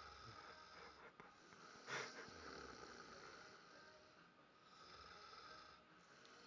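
A man snoring faintly, with low rumbling snores repeating every couple of seconds and a brief, louder sharp sound about two seconds in.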